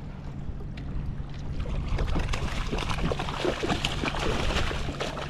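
A hooked fish thrashing and splashing at the water's surface beside a kayak as it is brought to the landing net, a quick run of splashes starting about two seconds in, over a steady low wind rumble on the microphone.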